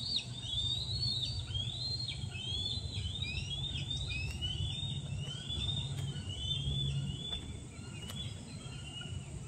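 High-pitched bird calls: a steady run of short arched notes, about two a second, that slowly fall in pitch, with a low hum underneath.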